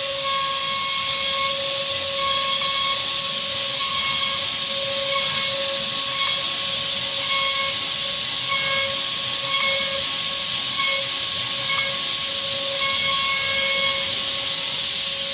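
CNC router spindle running with its bit carving into a wood board: a steady whine over a loud, even hiss of cutting.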